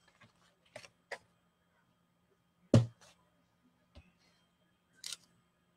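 Paper-crafting supplies handled on a desk: a few light taps and clicks, the loudest a little under halfway through, and a brief soft rustle near the end, over a faint steady hum.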